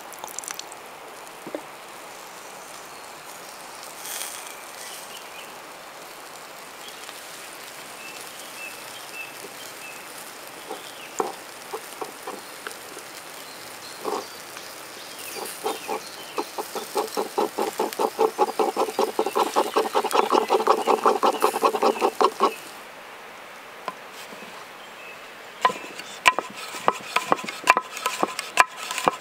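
Food preparation by hand: scattered knocks and taps. Midway comes a fast run of rapid strokes with a ringing tone lasting several seconds, then near the end a series of sharp knocks like a knife chopping on a wooden board.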